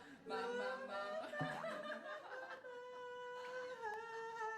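A person's voice vocalising in long, drawn-out held notes that step and slide down in pitch near the end.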